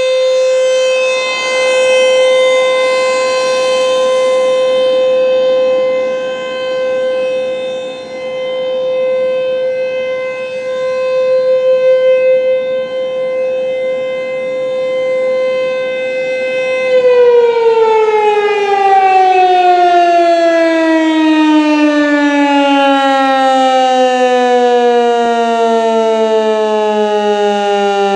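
ASC T-128 outdoor warning siren sounding its steady full-alert tone, swelling and fading in loudness as it sweeps around. About 17 seconds in the tone stops being held and winds down, its pitch sliding steadily lower as the 3-minute alert ends.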